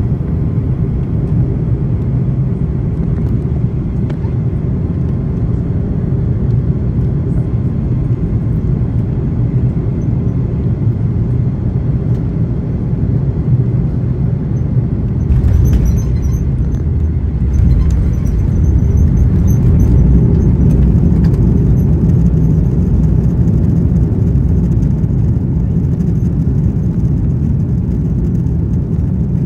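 Airliner cabin noise during landing: the jet engines and airflow make a steady low rumble. About halfway through, the wheels touch down and the rumble turns suddenly deeper and heavier, with a thin high whine coming in. The noise then swells to its loudest a few seconds later and eases slightly.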